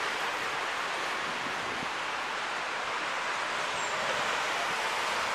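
Steady, even hiss of distant city traffic across a wide square.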